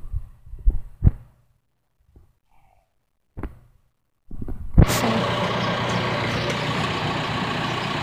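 A few soft knocks, then about five seconds in the backhoe's engine comes in suddenly and loudly and keeps running steadily.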